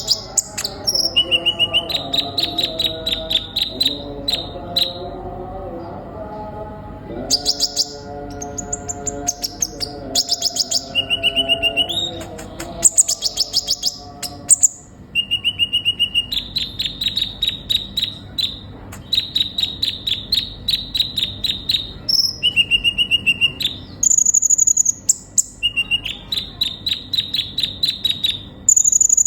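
Kolibri ninja sunbird singing: high, rapid trilled phrases repeated again and again, each opening with a short lower note and running into a fast chatter of high notes, with some sharper, higher notes between phrases.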